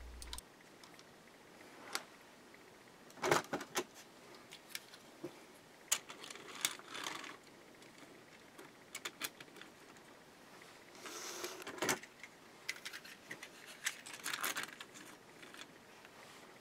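Light, irregular plastic clicks and rattles from HO scale freight cars being set by hand onto plastic E-Z Track and rolled back and forth over the rerailer until their wheels drop onto the rails, with short rattling bursts a few times.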